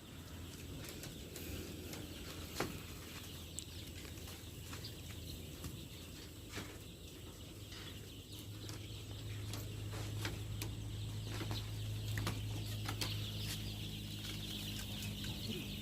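A flock of young layer chicks peeping together, with scattered short ticks. A steady low hum runs underneath and grows louder from about halfway.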